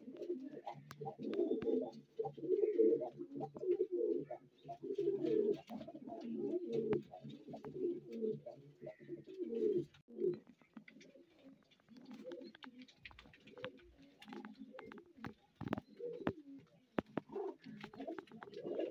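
Several domestic pigeons cooing, many overlapping for about the first ten seconds, then more sparsely, with a few sharp clicks scattered through.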